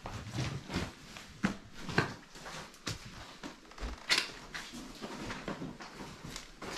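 Irregular knocks, scuffs and scrapes of people moving about a cluttered room, with a sharp click about four seconds in the loudest.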